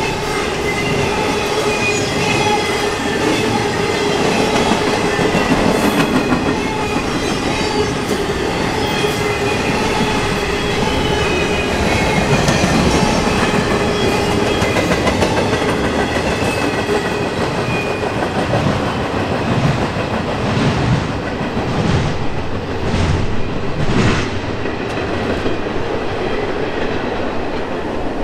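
Freight cars of an intermodal container train rolling past at speed: a steady heavy rumble with wheels clacking over rail joints, thinning out near the end as the last cars go by.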